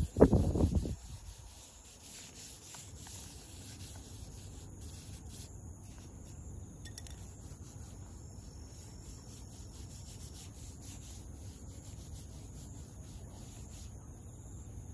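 Charcoal stick rubbed hard across sketchbook paper in a loud flurry of strokes during the first second, then softer rubbing as fingers blend the charcoal into the paper. A steady high buzz of insects runs underneath.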